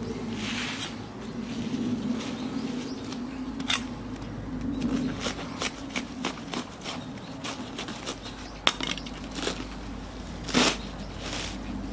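Napa cabbage being split for kimchi: a knife crunching into the white base of the head and the head torn apart by hand, giving scattered crisp cracks and leaf rustles, the loudest crack near the end.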